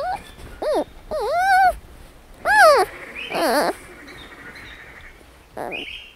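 Giant panda cubs bleating and squealing as they play-fight: about half a dozen short calls that rise and fall in pitch, one longer and wavering, a couple harsher and noisier.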